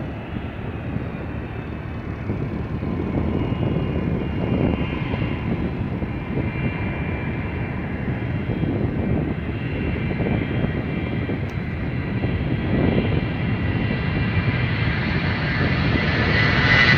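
Boeing 707's four jet engines at takeoff thrust during the start of its takeoff roll. A steady rumbling jet noise grows louder as the aircraft approaches, with a high whine rising strongly near the end.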